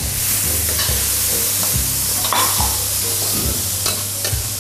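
Diced vegetables sizzling in a hot wok while a metal ladle stirs them, with several sharp scrapes and knocks of the ladle against the wok.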